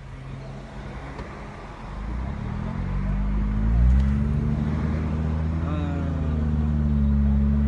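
Car engine and road noise heard from inside the cabin, growing louder and rising in pitch for about two seconds as the car speeds up, then holding steady. A brief voice sound is heard about six seconds in.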